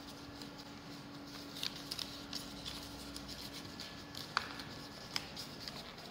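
Origami paper being folded and creased by hand: soft rustling with scattered crisp crackles, the sharpest about four seconds in, over a faint steady hum.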